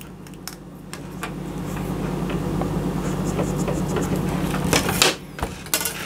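A steady low mechanical hum that grows louder and cuts off abruptly about five seconds in, followed by a few light clicks.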